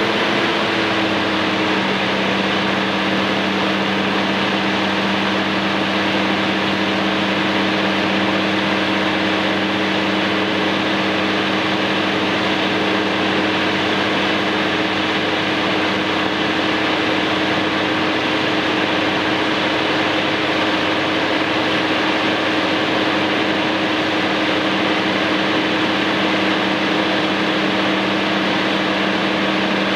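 Caterpillar 3406B inline-six diesel engine of a Kenworth W900 dump truck running steadily, its pitch easing down and settling in the first moment, then holding even.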